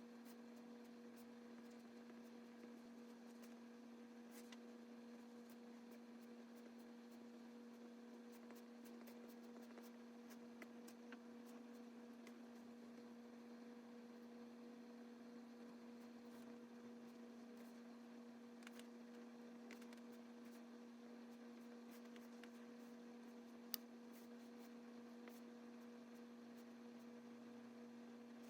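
Near silence: a steady low hum with a few faint ticks, and one sharper click late on.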